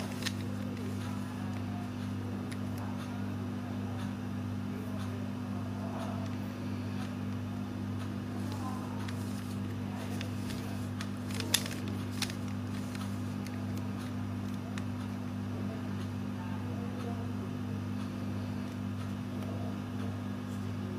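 A steady low hum, with faint distant voices and scattered faint clicks; one sharp click about eleven and a half seconds in is the loudest sound, followed by a smaller one.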